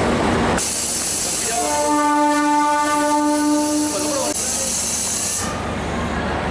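A train's horn sounds one steady blast of about two and a half seconds, over a loud hiss of air.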